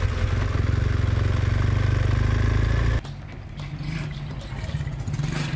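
Motorcycle engine running under way, with wind and road noise. About three seconds in it cuts abruptly to a quieter, steady engine hum.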